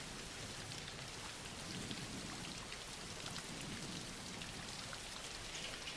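Steady soft rain falling, an even hiss of drops pattering on a surface.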